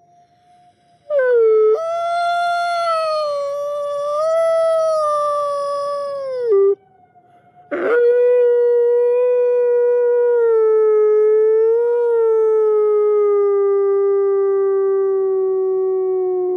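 A wolf howling: two long howls. The first is held high with a slight waver for about five and a half seconds. The second starts about a second later, lower, and slowly falls in pitch for nearly nine seconds before dropping off at the end.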